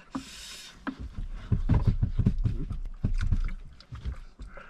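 A short hiss at the start, then a man gulping water from a plastic bottle in a run of swallows, the thin bottle crackling as he drinks.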